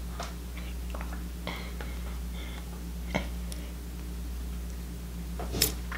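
Soft clicks and small taps of a burger being handled over a plastic container of sauce, over a steady low hum, with one short louder noise near the end.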